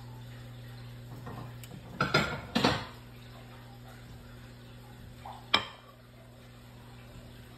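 Kitchen cookware clatter: two loud clanks of pans or dishes about two seconds in, then a single sharp clink about five and a half seconds in, over a steady low hum.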